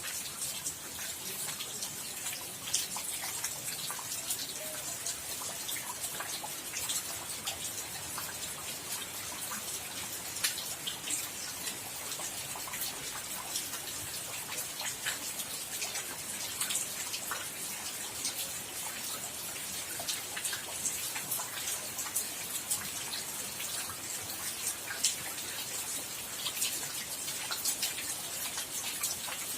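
Steady rain falling, with many distinct drops ticking irregularly close by.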